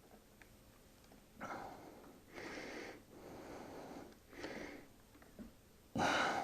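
A person breathing and sniffing close to the microphone: about five short noisy breaths after a quiet start, the last one the loudest.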